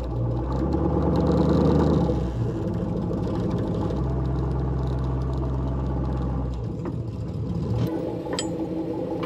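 Truck engine running under load during a recovery pull, its note changing in steps a few times. A couple of sharp clicks near the end.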